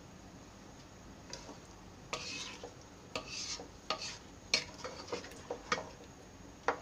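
Wooden spoon stirring chunks of mango in hot sugar syrup in a pan: irregular scraping strokes and light knocks of the spoon against the pan, starting about a second in. The mixture is stirred often so it doesn't stick to the bottom.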